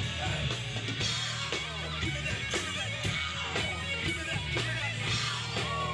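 Live rock band playing: guitar over a steady drum beat of about two hits a second, with a full low end underneath.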